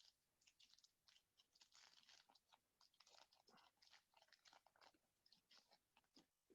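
Faint rustling and scuffing of trading cards being slid and flipped through the hands: many short, irregular scratchy scuffs.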